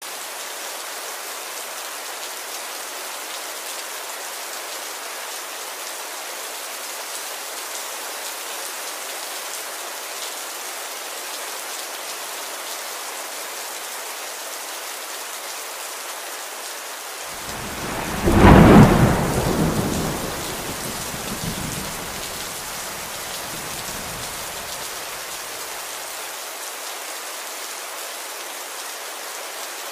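Steady rain falling, with a roll of thunder that breaks in a little past halfway, loudest for a couple of seconds and then rumbling away over several more.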